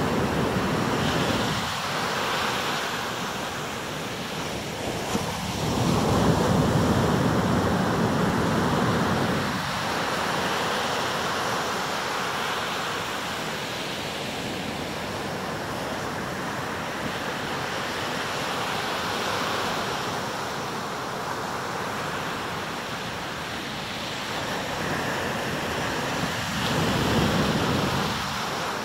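Atlantic surf breaking and washing up the beach: a steady rush of water that swells as waves break, loudest about six seconds in and again near the end.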